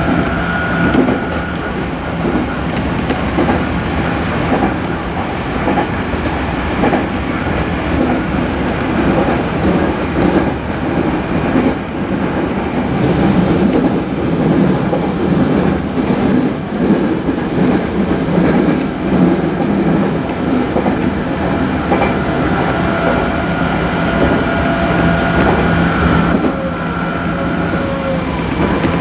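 Running noise of a Tokaido Line train at speed, heard from inside the carriage: a steady rumble of wheels on rail with clickety-clack from the track. A faint steady whine sits over it at the start and again near the end.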